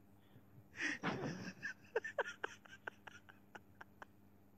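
A woman giggling: a breathy burst of laughter about a second in, trailing off into short quick pulses that fade away.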